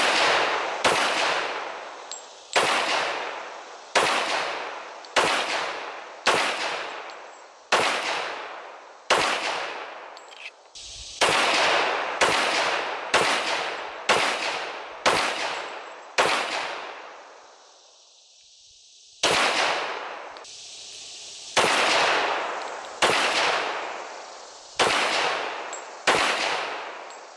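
Ruger SR1911 .45 ACP pistol fired in a steady string of some twenty shots, about one a second, each crack ringing off for about a second. There is a break of about two seconds past the middle before the shooting resumes.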